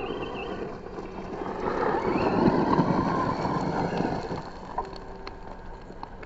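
Losi Promoto-MX electric RC dirt bike roosting past, its rear tyre spraying gravel and dirt: a rush of noise that builds for about two seconds, peaks, then fades, with a faint rising motor whine near the loudest part.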